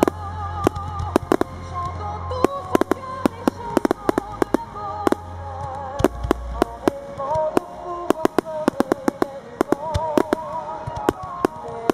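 Aerial firework shells bursting in quick succession, many sharp bangs a second, over music with wavering held notes and a bass line.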